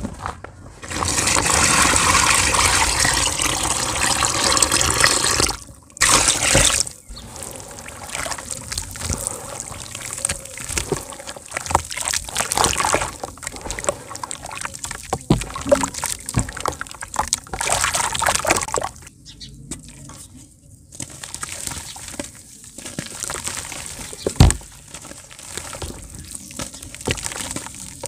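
Water poured into a plastic tub of dry grey dirt, a steady rushing splash for about five seconds. Then hands knead and squelch the wet grey dirt paste, with scattered crackles and one sharp knock near the end.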